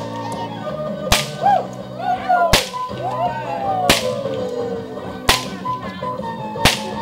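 Bullwhip cracks in a fancy-cracking routine: five sharp cracks spaced about a second and a half apart, with music playing in the background.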